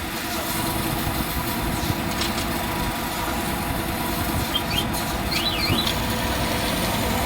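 Steady mechanical hum of a running motor or engine, with faint high chirps about five seconds in.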